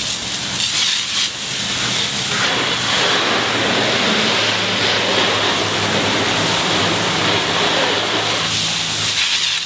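Garden hose spray nozzle spraying a steady fan of water against a car's side panels, rinsing off soap suds: a continuous hiss of spray that cuts off near the end.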